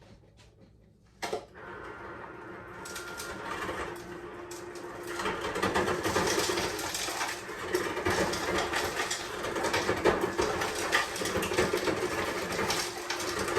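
A click, then water running steadily into a cup, the rush growing louder a few seconds in.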